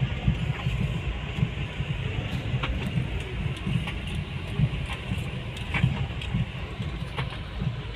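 Toyota Avanza being driven, heard from inside the cabin: a steady low road and tyre rumble with scattered light knocks and clicks at irregular moments.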